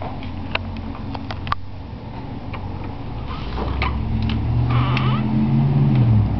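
A few light clicks and knocks from the child's tricycle as he climbs off it, then a low engine hum that grows steadily louder through the second half.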